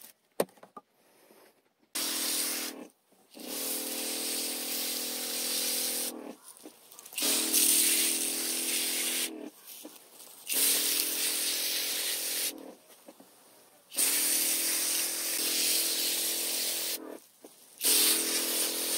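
Sprayer wand spraying liquid fertiliser onto the soil at the base of soybean plants: a hiss with a steady hum under it, in about six bursts of two to three seconds each with short pauses between.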